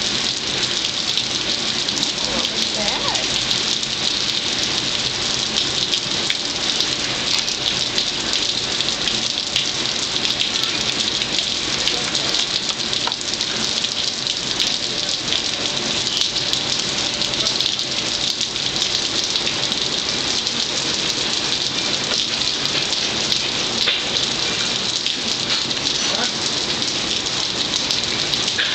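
Steady rain falling on hard outdoor surfaces, a dense, even hiss of drops with no let-up.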